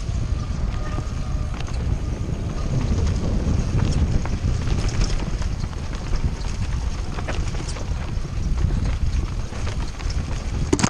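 Mountain bike descending a rough trail at speed: wind rushing over the microphone, with tyres rolling over rocky ground and the bike rattling in frequent sharp clicks and knocks. The noise drops off abruptly at the very end.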